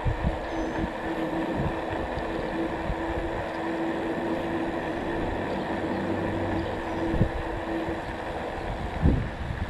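Wind rushing over the microphone while riding a bicycle, with steady road noise, gusty low thumps, and a steady hum that stops about eight seconds in.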